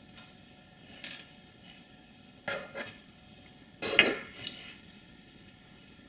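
Small metal hand tools clinking and clattering as they are put down and picked up: a handful of short knocks, the loudest about four seconds in.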